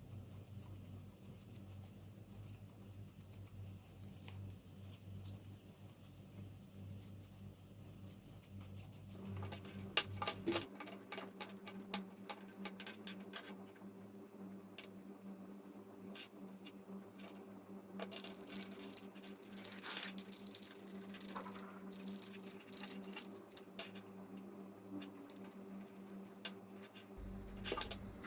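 Irregular light clicks and taps of small parts being handled during repair work, thickening after about nine seconds, over a low steady hum.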